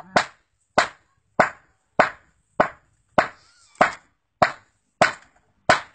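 Hammer striking a rough stone held on a concrete floor, about ten sharp blows at an even pace of a little under two a second.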